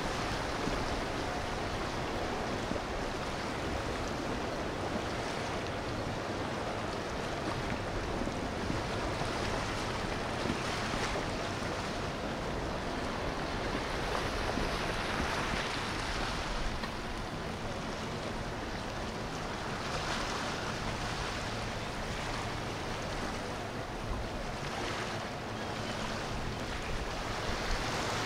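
Steady rush of water and boat wake with engine noise from boats on a river, swelling and easing a few times, and wind on the microphone.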